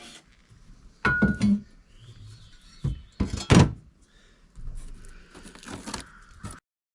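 Metal clunks and clanks as steel parts of a lift rail are moved: a few separate heavy knocks, then a stretch of rattling clatter. The sound cuts off abruptly near the end.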